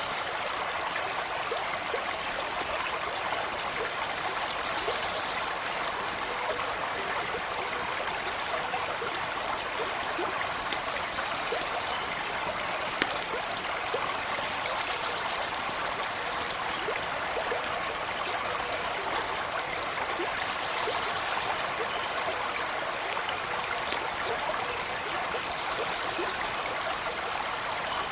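Small stream running steadily with an even rush and trickle, with scattered sharp little clicks over it.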